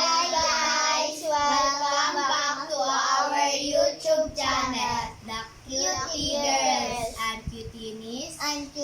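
Young girls singing a short tune in high child voices, with held and gliding notes, almost without pause.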